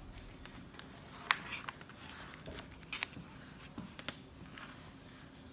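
A picture book being closed and handled on a tabletop: light rustling and a few sharp clicks and taps, the loudest about a second in.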